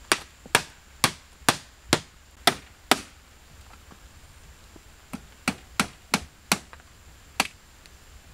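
Blade chopping into wood, sharp strikes about two a second. A run of seven strikes, a pause, then six more.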